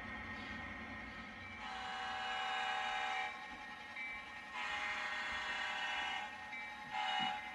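Horn of an HO-scale Western Maryland diesel locomotive, played by its onboard sound decoder: two long blasts and then a short one, the opening of a grade-crossing signal.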